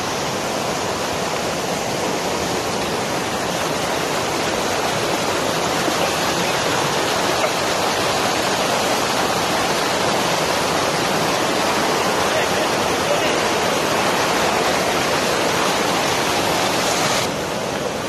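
Loud, steady rushing of a rocky stream's cascades pouring between boulders below a waterfall. Near the end it turns quieter and duller.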